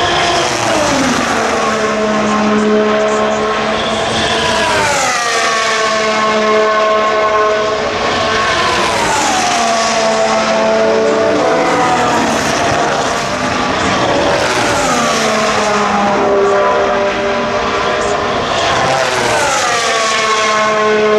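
Racing car engines at high revs as cars pass one after another. The engine pitch drops sharply about six times as each car goes by.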